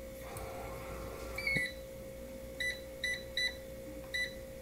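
Electronic keypad of a hotel-room safe beeping as its buttons are pressed: one slightly higher beep about a second and a half in, then four short beeps over the next two seconds.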